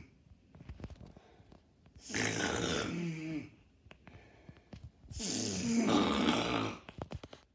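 A boy snoring loudly through his open mouth: two long, rasping snores, each about a second and a half, roughly three seconds apart.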